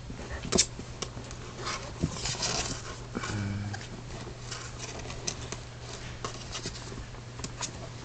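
Baby raccoons scrambling in a wire cage: a run of clicks and rattles as claws grip the wire mesh, with rustling of the bedding. A steady low hum underneath, and a short low buzz about three and a half seconds in.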